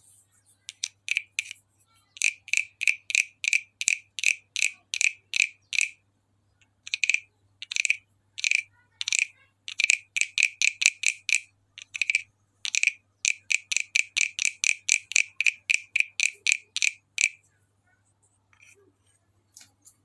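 A small wooden croaking frog (frog guiro) played by scraping its stick along the ridged back: a long run of quick, bright rasping croaks, about three a second, in bursts with short pauses, stopping shortly before the end.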